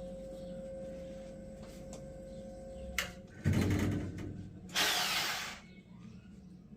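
A faint steady hum, then a knock about three seconds in. After it come two short bursts of noise, the second a brief run of a power tool such as a drill, about five seconds in.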